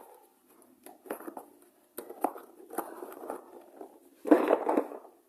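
Several short bursts of clicking and rustling from objects being handled close to the microphone, the loudest about four and a half seconds in.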